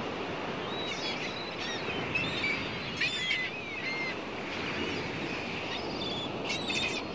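A steady rush of surf with birds chirping over it in short, high calls, which come thickest about three seconds in and again near the end.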